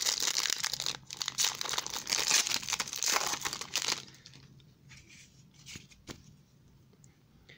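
Foil wrapper of a football trading-card pack being torn open and crinkled in the hands: dense crackling for about four seconds, then fainter scattered rustling.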